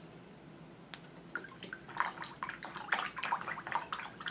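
Paintbrush swished in a jar of rinse water, a run of small irregular splashes and clinks against the jar starting about a second in: the brush being cleaned of water-mixable oil paint between colours.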